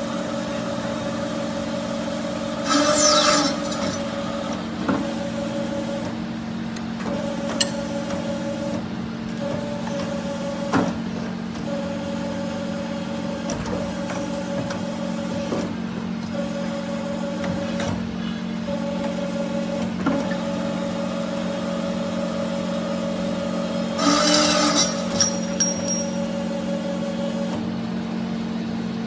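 CNC tube bending and sawing machine running: a steady hum from its motor and pump, with a higher tone that cuts in and out every second or two as it works and occasional clicks of clamps and actuators. Two loud bursts of noise, each about a second long, come about three seconds in and again near twenty-four seconds.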